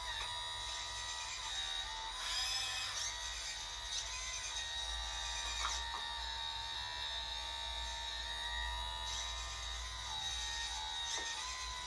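Steady high electric whine of a radio-controlled hydraulic excavator's pump, its pitch dipping briefly as the hydraulics take load, with a low hum beneath. A short scraping rush about two seconds in as the bucket works the dirt.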